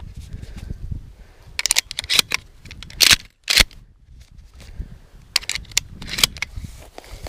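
Irregular knocks and rustles of a hunter on the move: footsteps in dry grass and the handling of a Remington 870 pump shotgun and its sling. The two loudest knocks come about three seconds in, close together.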